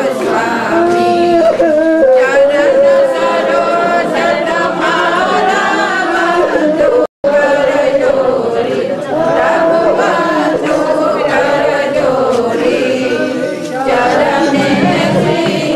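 A group of voices singing a Hindu devotional bhajan together. The sound cuts out briefly about seven seconds in.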